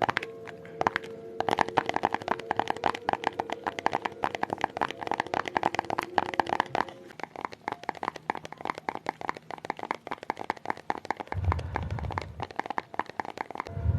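Rapid ASMR tapping: fingertips or nails tapping quickly on an object, many taps a second, with a faint ringing tone under the taps in the first half. A low rumble lasting about a second comes near the end.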